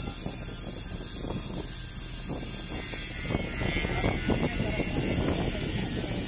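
Steady engine drone of heavy construction machinery on a pipeline site, growing a little louder and rougher in the second half.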